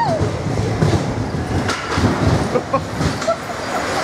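Spinning roller coaster car rumbling and clattering along its track, heard from on board, with irregular knocks and jolts.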